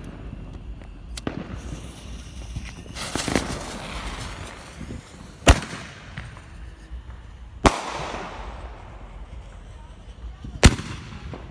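Consumer fireworks going off on a street: a couple of seconds of hissing, then three sharp bangs about two to three seconds apart.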